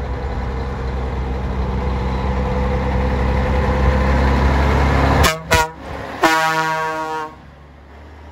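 Scania 111 S truck's 11-litre six-cylinder diesel running as it drives up, growing louder as it approaches. Just past halfway it gives two short toots on its air horn, then one longer blast of about a second.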